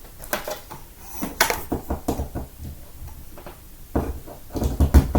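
Irregular knocks, clatter and rattles of a stick vacuum and its power cord being handled while it is plugged in. There are heavier, deeper thumps about four to five seconds in.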